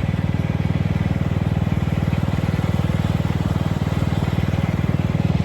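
Riding lawn mower engine running steadily as the mower is driven, with a rapid, even chug.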